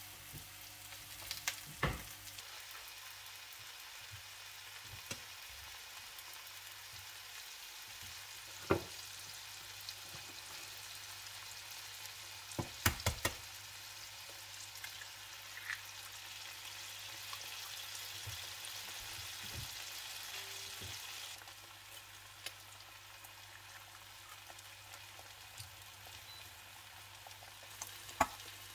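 Potatoes and vegetables sizzling in a frying pan, with a few sharp knocks against the pan. A little under halfway through, a quick cluster of taps comes as eggs are cracked into the pan, and the sizzle swells for a few seconds, then drops back.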